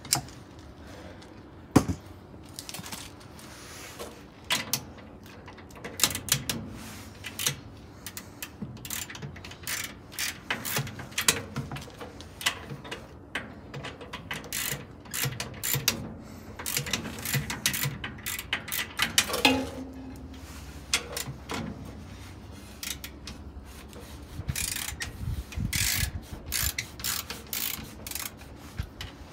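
Socket ratchet wrench clicking in quick runs as it turns a bolt on a washing machine's transmission gearcase, with occasional metal clinks of the socket and tools.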